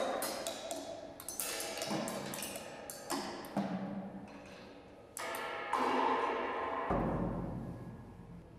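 Drum kit played freely with sticks: scattered clusters of quick strikes on drums and cymbals, each left to ring and die away, with some held ringing tones. A low hum comes in about seven seconds in.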